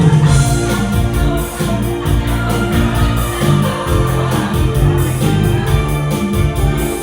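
Music with a steady beat over a sustained bass line.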